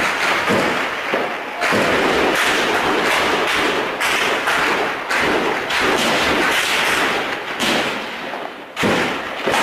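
Heavy gunfire in a firefight: shots and bursts follow one another so fast that they overlap, each cracking and echoing. The shooting eases briefly near the end, then a single loud shot breaks in.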